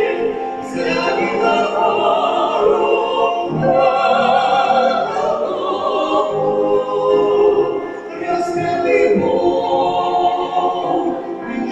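Vocal trio singing a Christian song in close harmony, with long held notes sung with vibrato.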